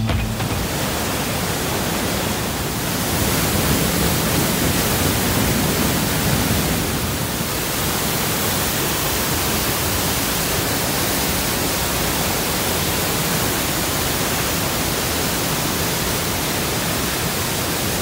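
Mountain waterfall and torrent: water plunging onto rock and into a pool, then rushing white water, heard as a steady, dense rush with no break.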